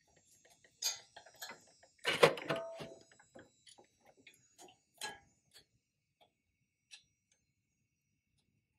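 Hand tools working metal brake-line fittings: scattered clicks and clinks, with a louder metallic clank that rings briefly about two seconds in and another sharp clink about five seconds in.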